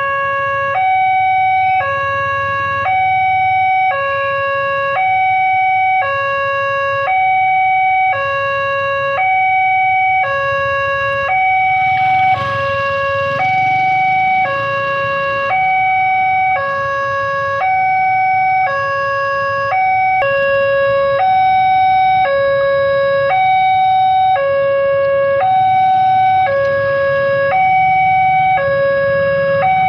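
Railway level-crossing warning siren sounding a loud two-tone alarm, with a lower and a higher tone alternating about once a second, warning that a train is approaching.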